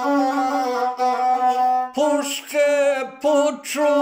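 A man singing a slow song, holding one long note for about two seconds, then after a short breath moving through shorter notes that slide up and down in pitch.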